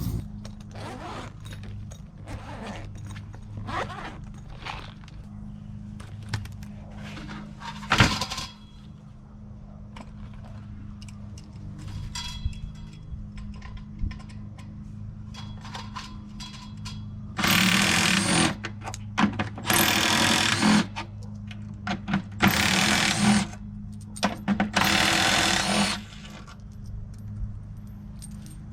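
Metal parts being knocked and handled, with one sharp knock, then a power drill running in four short bursts of about a second each while the blower motor is being taken apart.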